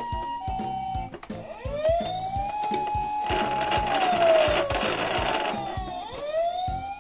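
Emergency-vehicle siren sounds. A Japanese ambulance's two-tone hi-lo "pee-po" plays briefly at the start. About a second and a half in, a wailing siren like a Japanese police car's takes over, rising, holding, falling and rising again, with a rushing noise in the middle, over a steady beat of low thumps.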